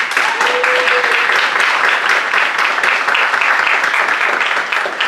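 Audience applauding, many hands clapping together at a steady, loud level.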